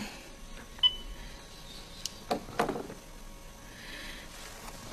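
A few soft clicks and knocks in a quiet room, with a short high beep about a second in.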